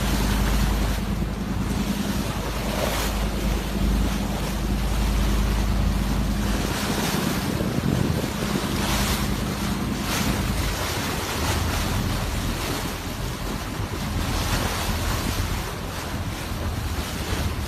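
Dive boat underway: the engine runs with a low steady hum while water rushes along the hull and wind buffets the microphone. The engine's hum drops away partway through, leaving the rush of water and wind.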